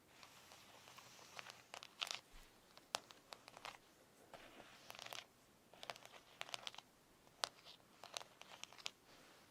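Fingernails tapping: faint, irregular clusters of sharp clicks, with short stretches of scratchy, rustling sound between them.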